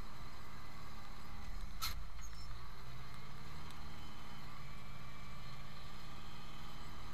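Zetor 10145 tractor's diesel engine running steadily under way, heard from inside the cab. A single sharp knock about two seconds in.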